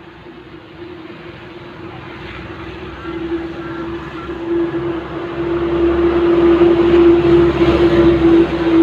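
An engine running with a steady hum over a low rumble, growing steadily louder as it comes closer or is opened up.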